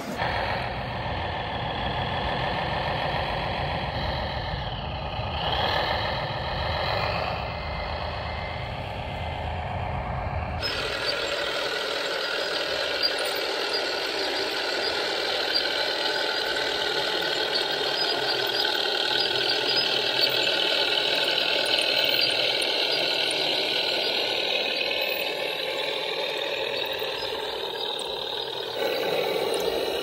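Radio-controlled scale models running. For about the first ten seconds model VW pickup trucks drive along a model road. After a sudden change, a model crawler tractor pulls a harrow through sand, its motor hum steady with a slowly wavering pitch.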